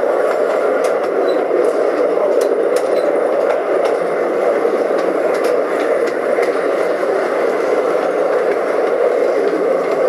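Narrow-gauge train running through a concrete-lined tunnel, heard from its open-sided coach: a steady, loud running noise with scattered sharp clicks.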